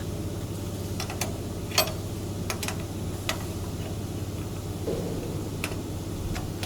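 Irregular sharp clicks and taps of tools and metal parts being handled during machine assembly, about eight in all, the loudest about two seconds in, over a steady low hum.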